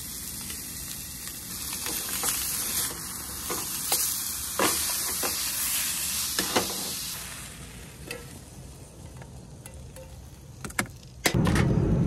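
A catfish fillet with lemon slices sizzling in a small frying pan on a propane camp stove, with a few light knocks of the pan and utensils. The sizzle fades about seven seconds in, and near the end a loud low rumble starts suddenly.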